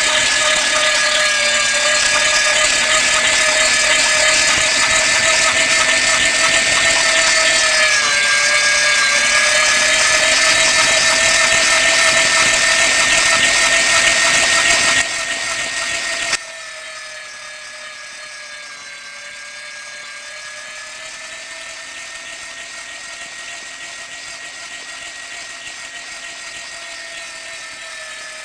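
Electric meat grinder running: a steady motor whine over a loud, rough grinding noise, the pitch dipping briefly about 8 s in. About 15 to 16 s in, the grinding noise drops away suddenly and the motor whines on, quieter, to the end.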